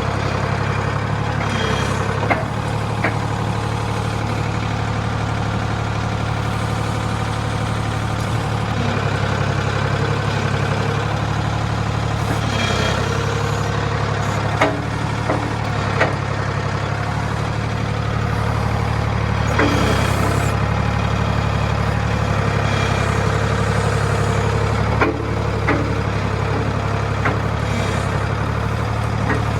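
Engine of a 1985 Ford 545A backhoe loader running steadily, with a handful of sharp knocks scattered through it.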